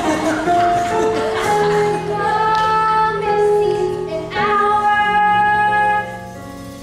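Show-tune music with long held sung notes, getting quieter near the end.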